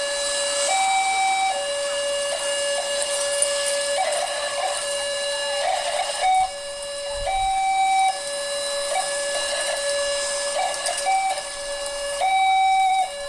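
Electronic warning siren of a manual railway level crossing. A steady tone jumps briefly to a higher note every few seconds, sounding to warn that a train is coming.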